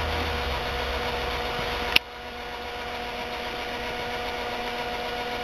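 Steady electric motor hum and whine from a G-scale model train pushing a drill-powered rotary snowplow. A sharp click about two seconds in, after which it runs a little quieter.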